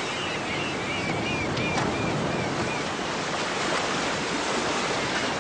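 Sea surf washing steadily against a rocky shore. A faint series of short high chirps repeats through the first couple of seconds.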